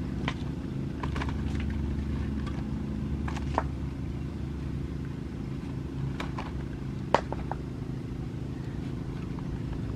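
A steady low motor-like hum with a few sharp clicks and knocks as a blackened cooking pot is lifted off and set aside; the loudest knock comes about seven seconds in.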